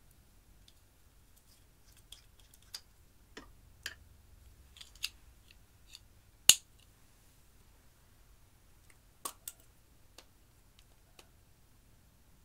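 Sparse clicks and taps of small plastic makeup pots, a plastic stir stick and a lip balm tube being handled over glass dishes. The loudest, a single sharp click, comes about six and a half seconds in.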